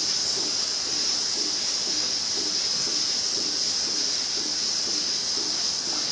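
Lely manure-scraping robot driving across rubber-covered slatted floor: a steady hiss with a low pulsing about twice a second.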